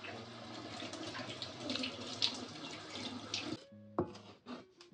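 Pancake batter being stirred in a bowl: a wet sloshing and scraping with irregular small clicks, which stops about three and a half seconds in, followed by a single sharp knock.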